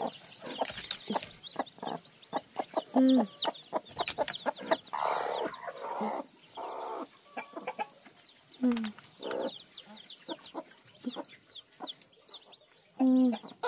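A hen clucking low now and then while newly hatched chicks peep in quick, high chirps throughout; the eggs are hatching. A harsher, noisy stretch comes about five to seven seconds in.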